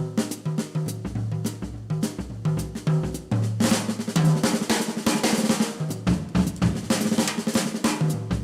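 Jazz drum kit playing a passage of sparse snare and bass-drum strokes over short low pitched notes; about three and a half seconds in, it breaks into dense, driving snare and cymbal playing.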